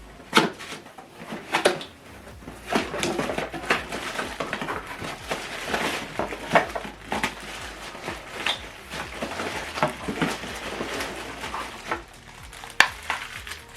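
Packaging being handled during an unboxing: rustling and irregular clattering knocks as items are moved about and taken out of the box.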